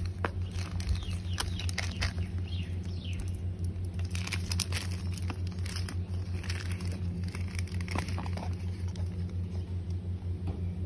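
Hands peeling the tamper-seal stickers and lifting the lid off an iPhone 13 cardboard box: light rustling, crinkling and small clicks. A steady low engine hum runs underneath.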